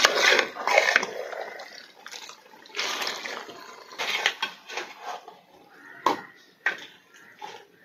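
A steel spoon stirring thick, wet duck curry in a steel pot: a handful of irregular wet scrapes against the pot.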